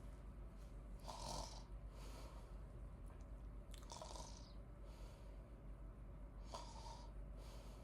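A person sleeping and snoring softly: three faint, breathy snores at even intervals of about three seconds.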